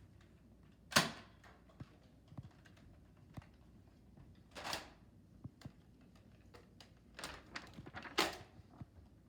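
Plastic clicks and clacks from a Nerf blaster being handled, with three louder sharp clacks about a second in, near the middle and near the end, and lighter ticks between them.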